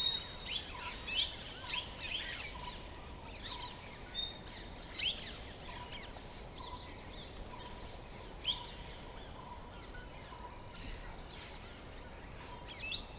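Birds calling with short, sweeping chirps scattered throughout, a few standing out louder, over a faint note repeated at an even pace and a steady background hiss.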